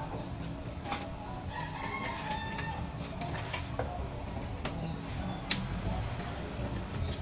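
A rooster crowing once, starting about a second and a half in and lasting over a second, with a few sharp clinks.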